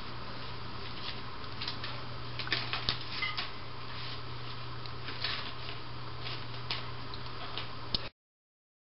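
Soft rustling and scattered small scratchy clicks as two-week-old Siamese kittens wriggle and wrestle on a fleece bed, over a steady low hum. The sound cuts off suddenly about eight seconds in.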